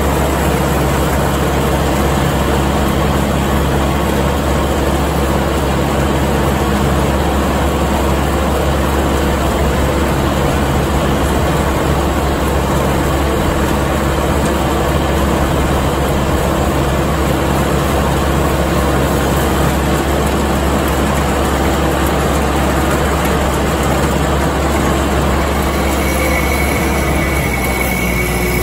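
Kubota MX5200 tractor's diesel engine running steadily under load while the New Holland haybine it drives rattles through the hay. The engine note drops right at the end.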